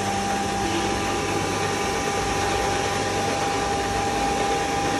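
Belt-driven stainless steel coriander grinder running steadily, a continuous whirring noise with a steady mid-pitched hum.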